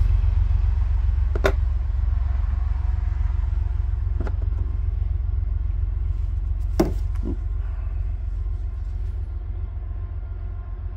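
Steady low rumble that eases off slightly toward the end, with a few sharp clicks of small plastic trim pieces being handled and pried loose with a razor blade.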